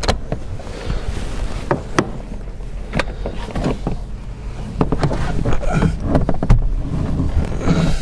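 Irregular knocks, clicks and scraping from a car's front seat being shifted and worked loose inside the cabin.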